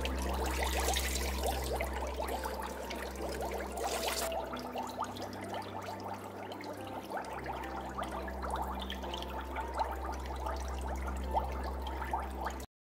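Bathwater being poured from a scoop and splashed by hands in a shallow plastic tub during a small dog's bath, heaviest in the first four seconds, then lighter sloshing and trickling. It cuts off suddenly just before the end.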